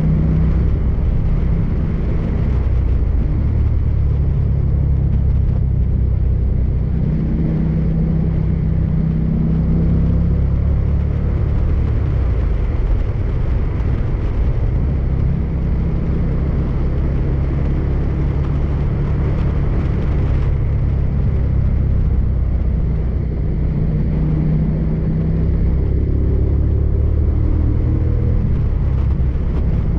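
Motorcycle engine running at a steady cruise, with a constant low rumble and road and wind noise. The engine note drifts up and down a little.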